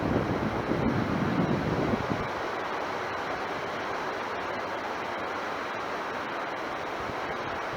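Wind buffeting the microphone, gusting through the first couple of seconds, over a steady hiss.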